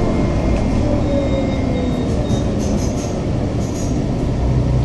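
City bus running in traffic, heard from inside the cabin: a steady low engine and road rumble, with a few brief high squeaks near the middle.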